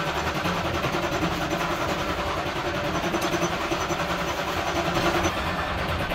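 Metal lathe running in a machine shop, its chuck turning a steel gear blank with a steady mechanical noise.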